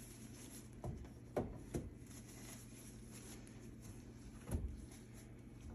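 Faint handling noises with four short, soft knocks, about a second in, twice more soon after, and once near the end, as things are moved and wiped during cleaning.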